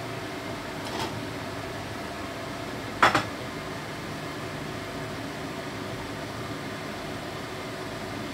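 Steady kitchen hum and hiss, with a faint click about a second in and a sharp double clatter, like a pot or dish being knocked, about three seconds in.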